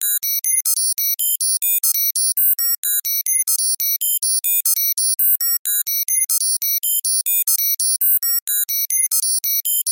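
Synthesized computer data-processing sound effect: a rapid, unbroken stream of short electronic bleeps at randomly jumping pitches, about six a second.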